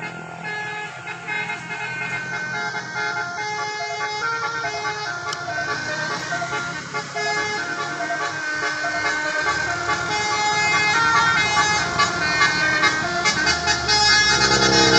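A bus's basuri-type telolet horn playing a melody of quick changing notes over the steady drone of the bus engine. It grows louder toward the end.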